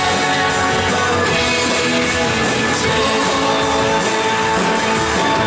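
Live worship band playing a guitar-led, rock-style passage of a congregational song between sung lines.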